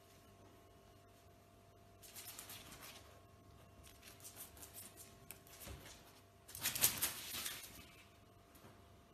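Faint scratchy rustling and skittering in short bursts, the loudest about two-thirds of the way through, as a cat scrabbles and pounces on a hard floor.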